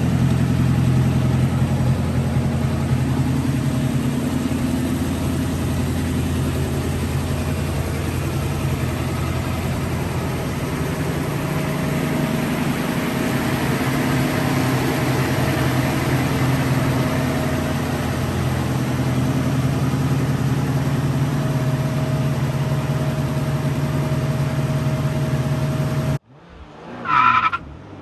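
A 1965 Ford Mustang's freshly rebuilt 289 V8 running steadily, its note drifting slightly with a hiss underneath. It cuts off abruptly near the end, followed by a brief high-pitched sound.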